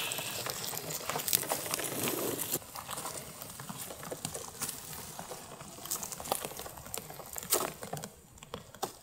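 Rustling of grass and crackling of twigs under the Mammotion Luba 2 AWD robotic mower as it pushes over a branch-strewn lawn. It is busier for the first couple of seconds, then drops to scattered snaps and clicks.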